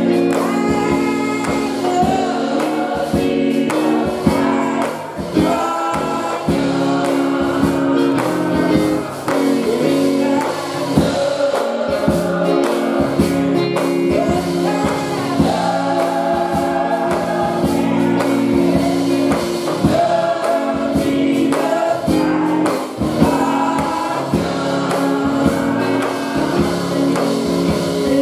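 Gospel choir singing in harmony, one voice leading on a handheld microphone.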